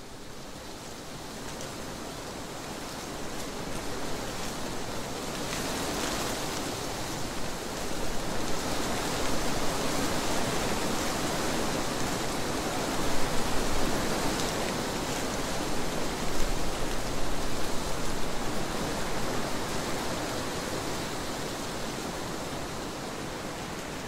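Wind blowing through trees, a rushing sound that builds over the first several seconds, swells in stronger gusts past the middle, and eases a little near the end.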